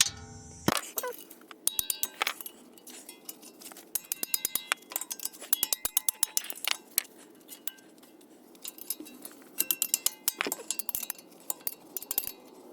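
Wrench ratcheting in quick runs of sharp metallic clicks as the wheel bearing's mounting bolts are broken loose and backed out, with a single sharp knock just under a second in.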